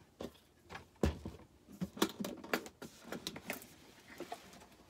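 Irregular light clicks and knocks of small objects being handled and set down on a craft table, about a dozen in all.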